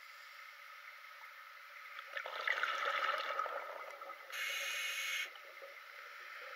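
Scuba diver's regulator heard through an underwater camera housing: a stretch of exhaled bubbles gurgling out, then about a second of steady inhalation hiss that starts and stops sharply.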